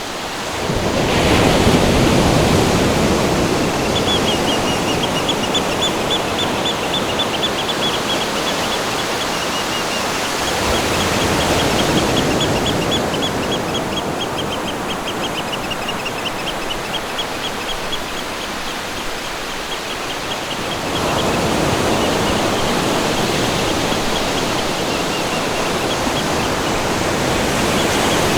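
Steady rushing water, an outdoor nature ambience. From about four seconds in to about twenty-one seconds, high, fast trilling chirps repeat over it.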